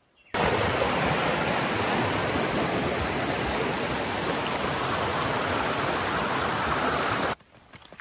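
Shallow mountain stream rushing over rocks: a steady, full rush of water that starts abruptly and cuts off suddenly near the end.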